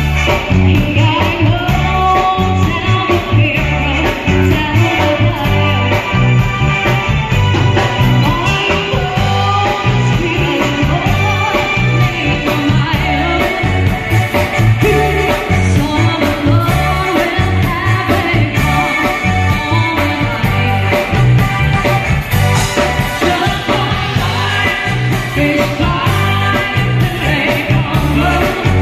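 Live band playing a song through a PA system: a singer over electric guitar, bass, keyboard and drums with a steady beat, loud from close to the speaker stack.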